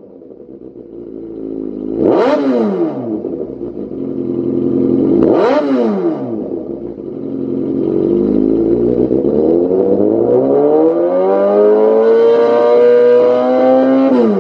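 Kawasaki Z800's inline-four engine running through a Lextek CP8C carbon slip-on silencer, revved while standing still. It idles, is blipped sharply twice, about two and five seconds in, then climbs slowly in revs from about eight seconds in, holds high and drops back sharply near the end.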